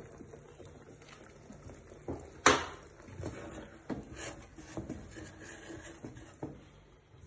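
Cooking pots and utensils being handled: scattered knocks and clinks, with one sharp clack about two and a half seconds in.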